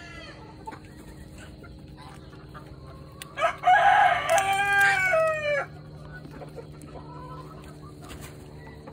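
A rooster crows once, a loud call of about two seconds starting about three and a half seconds in, dropping in pitch at the end. Around it are faint hen clucks over a steady low hum.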